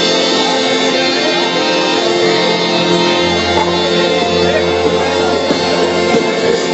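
Live devotional qasida music: accompanying instruments holding steady sustained tones, with a deeper tone joining about three seconds in and fading near the end.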